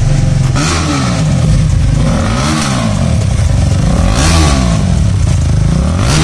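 KTM Duke 390's single-cylinder engine running with its stock muffler removed, exhausting straight out of the short pipe after the catalytic converter. It idles loudly and is revved in three throttle blips about two seconds apart, with a light crackle.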